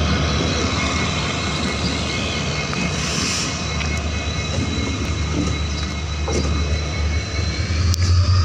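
WDG4D diesel-electric locomotive's EMD 710 two-stroke V16 engine running close by. It makes a steady low drone with a high whine above it. Near the end the drone grows louder and the whine rises in pitch as the engine speeds up.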